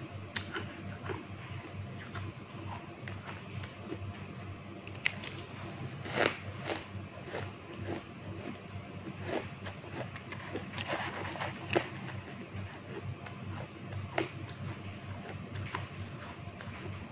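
Close-miked crunching and chewing of shaved ice and ice cubes, a run of irregular sharp crunches. The loudest bites come about six seconds in and again near twelve seconds.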